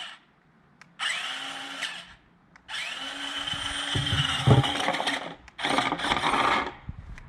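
Small electric drive motor and gear train of a JJRC Q137 8x8 RC vehicle whining in three bursts as the throttle is pulsed on and off. The pitch rises as each burst starts, and the middle burst is the longest.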